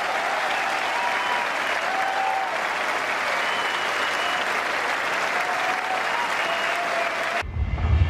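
Large audience applauding at the close of a song, with a few short whistle-like tones above the clapping. It cuts off abruptly about seven and a half seconds in, giving way to loud music with a heavy low beat.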